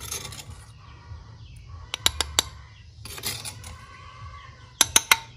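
Spoon knocking against the rim of a bowl to shake off blended tomato: two quick runs of about four sharp clicks, the second near the end.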